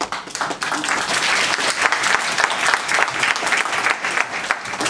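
Audience applauding: many people clapping together, starting suddenly and dying away near the end.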